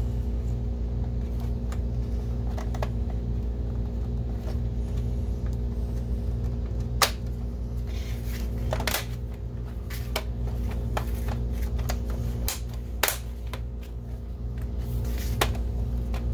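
Plastic clicks and knocks as a projector's top cover is pressed down and its clips seated, with the sharpest snaps about seven and thirteen seconds in. They sit over a steady low background hum.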